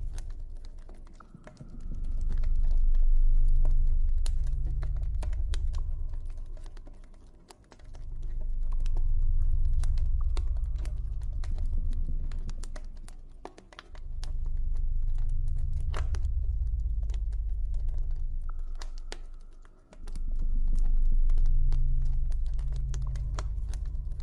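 Campfire crackling, with scattered sharp pops, over a deep ambient drone that swells and fades about every six seconds.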